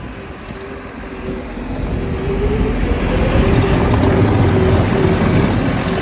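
Tracked sidewalk snow plow (SW4S) running with a steady whining tone over a low engine rumble. It grows louder over the first few seconds as the machine comes close past.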